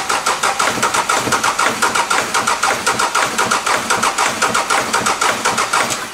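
Mercedes OM651 four-cylinder CDI diesel being cranked by its starter with two injectors unplugged: it turns over with even rhythmic pulses but does not fire, then the cranking stops at the end. Its failure to start with cylinder 3's injector disconnected is taken as the sign that cylinder 3 is working.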